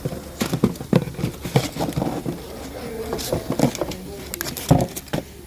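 Irregular knocks, clicks and clatters of hard objects being handled, with the loudest knock a little before the end.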